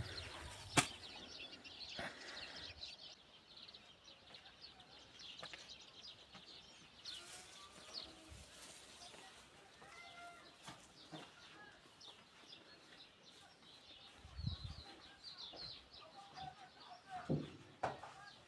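Small birds chirping and twittering throughout, with a sharp knock about a second in and a few more knocks and a low thud near the end.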